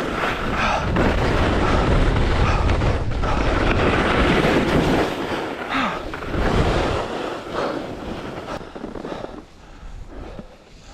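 Wind buffeting an action camera's microphone while skiing downhill, a heavy rumbling rush that dies down over the last few seconds as the skier slows.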